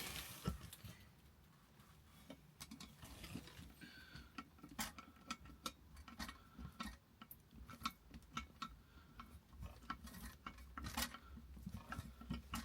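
Faint, irregular metallic clicks and ticks of an adjustable spanner and Phillips screwdriver on a toilet cistern bolt as its nut is tightened, with a few light ringing clinks.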